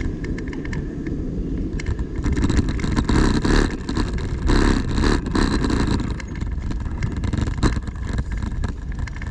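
City street traffic over a steady low rumble, with a vehicle passing louder for a few seconds in the middle, and scattered light clicks.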